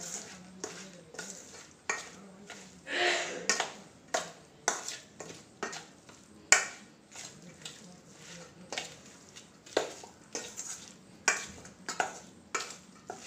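A spoon stirring marinated chicken pieces in a stainless steel bowl, with irregular clinks and scrapes against the bowl about every half second and a longer scrape about three seconds in.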